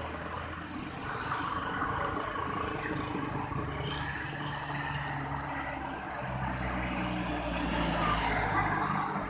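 Tour bus engine running, its low note growing stronger about six seconds in.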